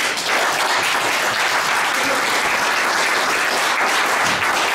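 Audience applauding steadily, starting suddenly.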